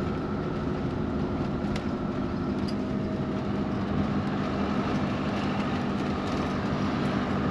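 Motorhome driving at a steady pace, its engine humming evenly under road noise, heard from inside the cab.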